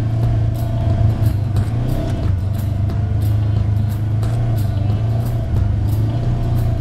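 Side-by-side UTV driving along a dirt trail: a steady, loud engine and drivetrain drone.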